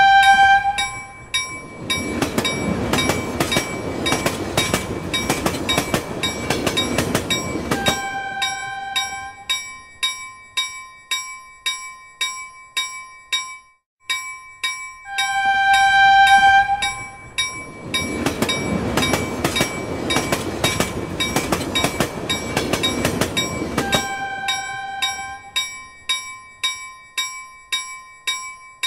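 Level-crossing bell ringing steadily at about two strikes a second while a train passes fast. Each pass has a rushing, rumbling noise of about six seconds, with a train horn blast just before and just after it. The whole sequence plays twice, with a brief gap in between.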